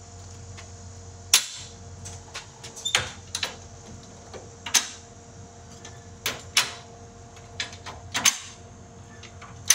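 Farm jack being lowered by pumping its handle: a dozen or so sharp metal clacks from the jack's climbing mechanism, one to two seconds apart, over a faint steady hum.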